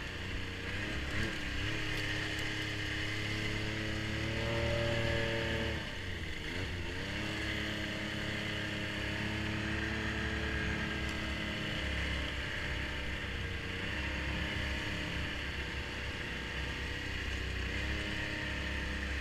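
Snowmobile engine running steadily. Its pitch rises briefly about four seconds in, drops sharply about six seconds in, and dips again near the end as the throttle changes.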